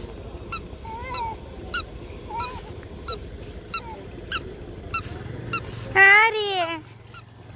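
Birds calling outdoors: short honking calls repeated every half second or so, with thin high chirps between them. About six seconds in comes one louder, longer call that rises and falls. A low hum sets in shortly before it.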